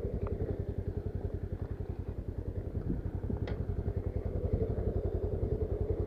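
Motorcycle engine running at low, steady revs, each firing pulse distinct, with a single sharp click about three and a half seconds in.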